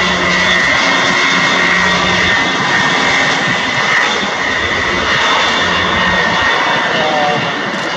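Boeing E-3A AWACS's four TF33 turbofan engines running: a loud, steady jet noise with a high whine over it.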